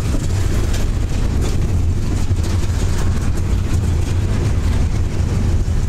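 Double-stack intermodal container well cars rolling past, a steady low rumble of steel wheels on the rails.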